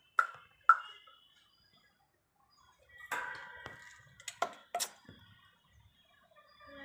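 Pet talking parrot making sharp clicks and a short harsh call between its words.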